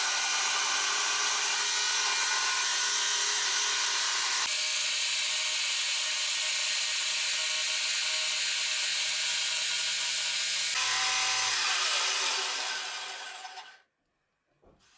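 Power saw cutting a slot in wood, running steadily with a loud, harsh noise. Near the end the motor winds down with a falling whine and stops.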